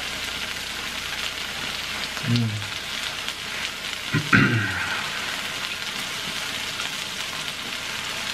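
Melted mozzarella cheese and chips sizzling steadily on a hot electric griddle. Two short hummed 'mm' sounds from the eaters come about two and four seconds in.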